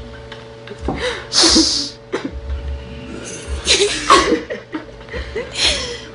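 Three loud, breathy bursts of a person's voice: one about a second in, one near the middle and one just before the end, the last falling in pitch.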